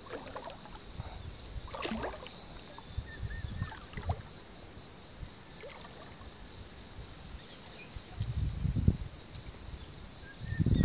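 Water lapping and sloshing quietly around a float tube, with a few faint bird chirps and a steady faint high hum behind it. About eight seconds in the water sloshing swells briefly.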